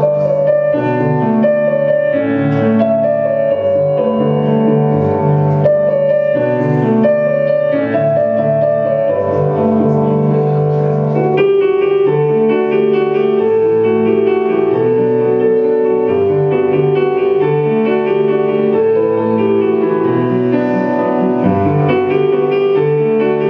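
Slow piano music playing steadily, with notes held and overlapping.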